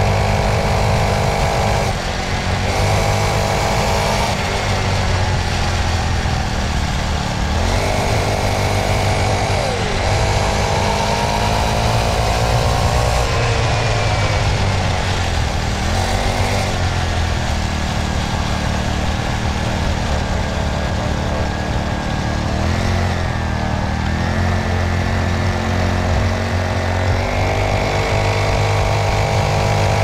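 Small engine of a mini dirt bike running under way as it is ridden, its pitch rising and falling as the rider speeds up and eases off.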